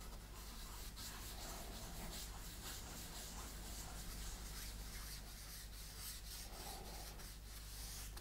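A French polish rubber, cotton wadding wrapped in a lint-free cloth and charged with shellac, wiped in long strokes over a finished wooden tabletop while a fresh coat is applied. It makes a faint, soft rubbing over a low steady hum.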